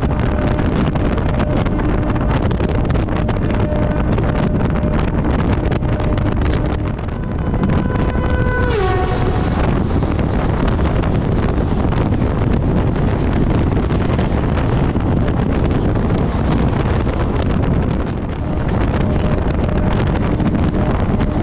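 Wind and rail noise rushing past a fast-running EMU local train, heard from its open door or window, with a faint steady hum. About eight seconds in, an express passing on the next track sounds its horn, which slides down in pitch as it goes by. Its coaches then rush past for about ten seconds.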